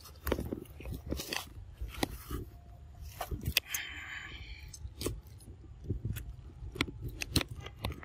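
Macaque biting and chewing the skin and flesh of an unripe green mango: a run of sharp, irregular crunches and clicks.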